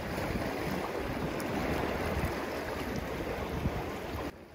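Wind buffeting the microphone over the wash of the sea against the rocks, a steady noisy rumble that drops away suddenly near the end.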